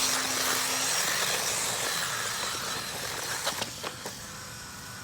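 Traxxas 1/16 Slash electric RC truck driving over rough ground: a steady motor whine that stops about a second in, with tyre and gravel noise that fades as the truck moves away, and a few sharp clicks near the end.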